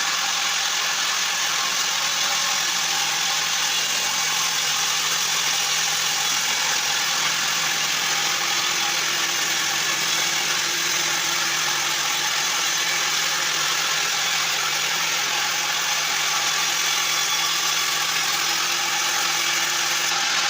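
Mobile sawmill running with a steady, even mechanical noise that holds unchanged throughout.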